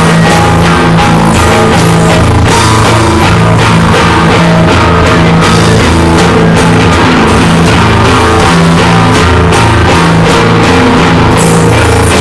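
Loud rock music with a drum kit and guitar, playing continuously at a steady, dense level.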